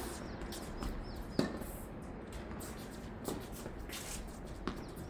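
Tennis rally: a ball struck back and forth with rackets, four sharp pocks spaced one and a half to two seconds apart, the strongest about one and a half seconds in.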